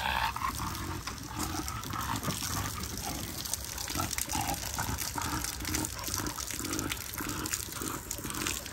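Water trickling and splashing, with dogs moving about.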